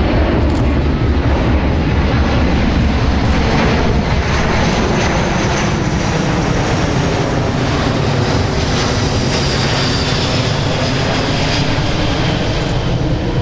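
Boeing C-17 Globemaster III's four Pratt & Whitney F117 turbofan engines passing low overhead: a loud, steady jet rumble with a high turbine whine that falls in pitch as the aircraft goes by.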